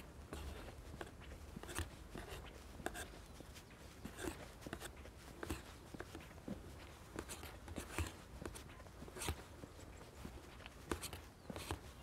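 Footsteps of a person walking, irregular steps roughly once a second, over a low steady rumble.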